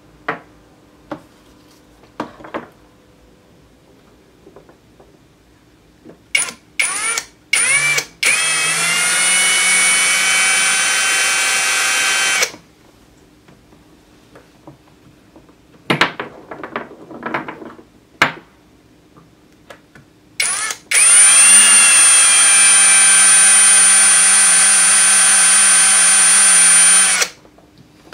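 Cordless drill with a thin twist bit, drilling into the metal end cap of an 18650 lithium-ion cell. A few quick trigger blips come before each of two steady runs of the motor's whine, about four and six seconds long, each rising briefly as it spins up. Clicks of handling fall between the runs.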